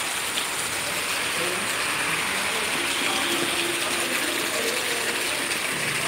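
Steady rain falling, a dense even hiss with no let-up.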